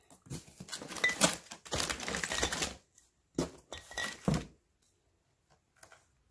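Plastic grocery bags rustling as items are pulled out and handled during unpacking, with a few knocks a little after three and around four seconds in as things are set down.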